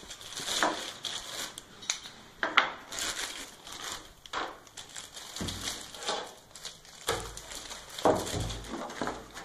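Clear plastic packaging bags crinkling and rustling as a hand blender and its parts are unwrapped. There are some dull bumps of the parts being handled in the second half.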